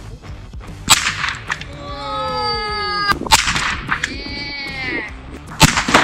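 .22 LR rifle shots hitting aerosol cans of spray string. There are three sharp cracks, about a second in, midway and near the end. The first two are each followed by a hiss of spray escaping, and squealing, wavering tones sound between the shots.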